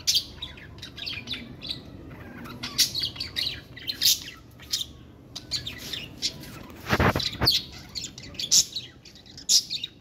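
Caged budgerigars chirping and chattering in quick, high, overlapping notes, with a double thump about seven seconds in.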